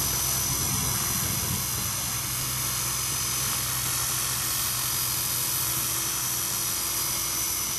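Art Tech Falcon 3D electric RC helicopter in flight, its brushless outrunner motor and rotor running at a steady hum with a thin high whine.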